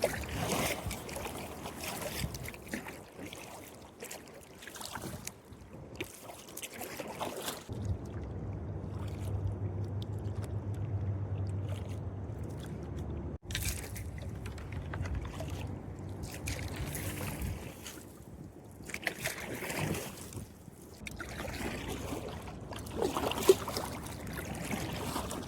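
Kayak paddle strokes swishing and splashing in the water at irregular intervals. A low steady hum runs for several seconds in the middle.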